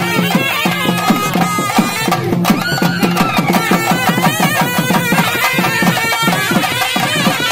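Loud traditional folk music: drums beating a steady fast rhythm under a reedy wind instrument playing a held, wavering melody over a drone.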